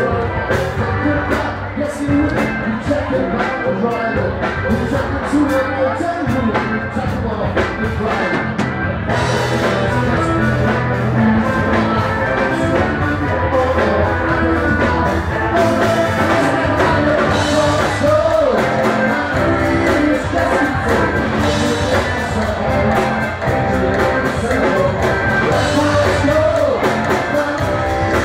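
Live band playing a song with a lead singer and electric guitar over a steady drumbeat, loud, with the cymbals brighter from about nine seconds in. Recorded on a mobile phone in the crowd.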